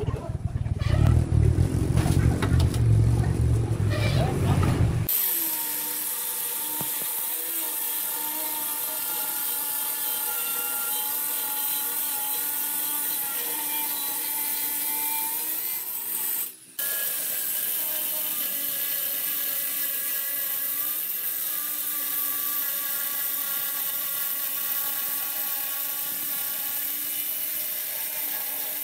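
Handheld electric stone cutter with a diamond blade wet-cutting a granite countertop slab: a steady motor whine with a hiss from the blade in the stone, breaking off for a moment about two-thirds through. It begins about five seconds in, after a stretch of low rumbling.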